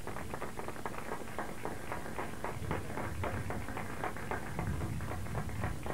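A crowd applauding: many hands clapping irregularly at a steady level.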